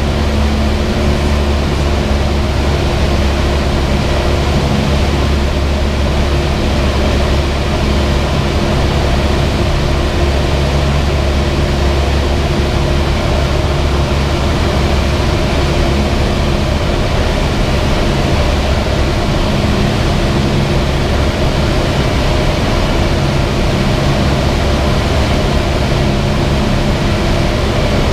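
Cessna 172's piston engine and propeller running with a steady drone, with rushing air noise over it.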